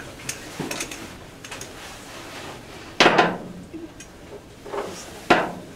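A few sharp knocks and clanks, the loudest about three seconds in and another near the end, with no engine running.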